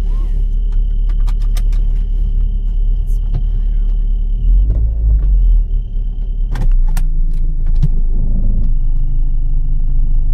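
Proton Gen-2 running with a thin, steady high-pitched whistle over the car's low rumble, a whistle of unknown origin. The whistle breaks off about six and a half seconds in and comes back near the end, with a few sharp clicks and rattles.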